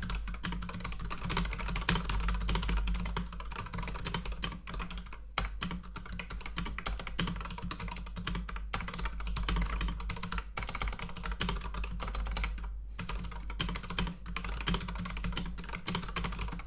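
Rapid typing on a computer keyboard, a fast, steady patter of key clicks with a few short pauses, during a typing-speed race that finishes at about 86 words per minute.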